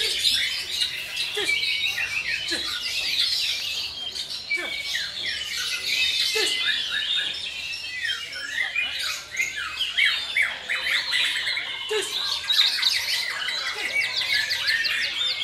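Several black-tailed white-rumped shamas (murai batu) singing at once in competition: a dense, overlapping stream of quick whistles, chirps and rapid trills with no pauses.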